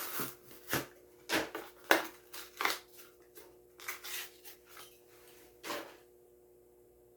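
A diecast toy car's plastic blister pack and cardboard backing being torn and pried open by hand: a string of irregular crackles and sharp clicks that stops about six seconds in.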